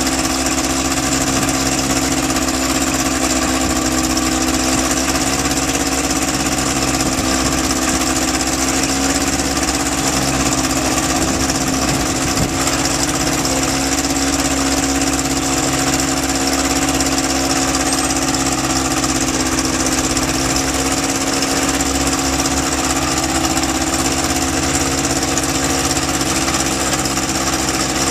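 Kitfox light aircraft's engine running steadily at a low, even speed on a ground run, a continuous drone with no revving.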